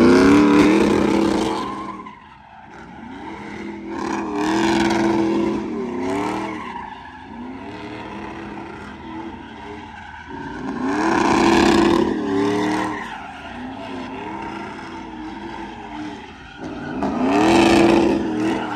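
Pickup truck doing donuts: the engine revs hard in four surges, held high for a second or so each time and dropping between, over tires squealing and skidding on the pavement.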